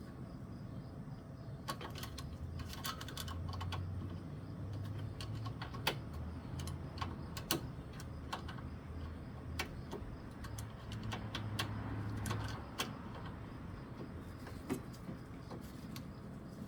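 Irregular sharp clicks and light taps of small metal tools and carburetor parts being handled, over a low hum.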